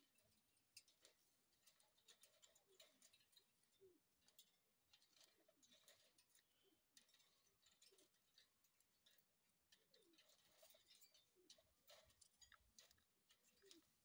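Parakeets clambering on a wire cage, very faint: scattered light clicks and scratches of claws and beaks on the metal bars, with a few soft, short falling calls.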